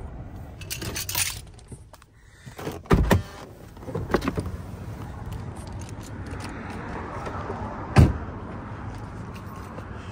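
Getting out of a parked minivan: keys jangling and a few clicks and knocks, with the car door shutting with a thump about three seconds in. Then footsteps across the parking lot, with a single sharp knock near the end, the loudest sound.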